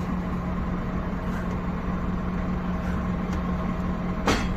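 Scania truck's diesel engine idling steadily, heard from inside the cab. About four seconds in comes a single sharp click: the fifth-wheel coupling jaws locking onto the semi-trailer's kingpin.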